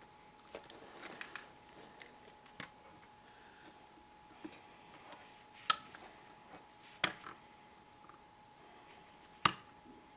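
Small clicks and taps from tools and parts being handled while a battery wire is soldered, with three sharper clicks in the second half. A faint steady tone runs underneath.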